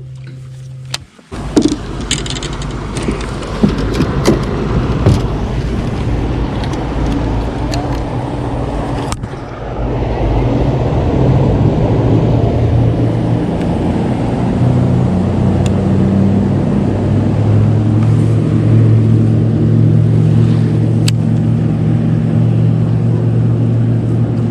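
Boat motor running under way, with wind and water noise. The motor comes in loud about a second in and settles into a louder, steady drone about ten seconds in, as it picks up speed.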